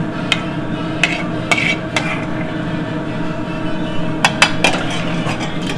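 Metal spatula clinking and scraping against a sauté pan and plate as sauce is scraped out. There are a few separate clinks in the first two seconds, then a quick run of them near the end. Under it runs a steady mechanical hum of kitchen ventilation.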